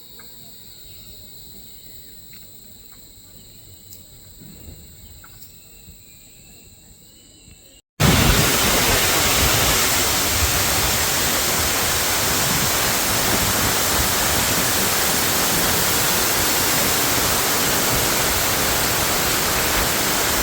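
Steady high-pitched drone of forest insects with a few faint clicks, then, after a cut about eight seconds in, the loud, steady rushing of a waterfall.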